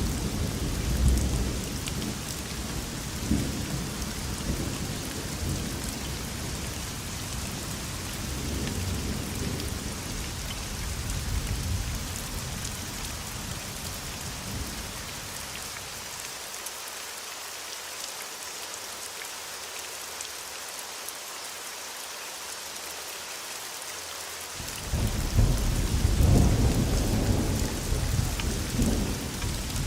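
Steady heavy rain hissing, with rolling thunder rumbling underneath. The rumble fades out about halfway through, leaving only the rain, then a fresh thunder rumble breaks in sharply near the end.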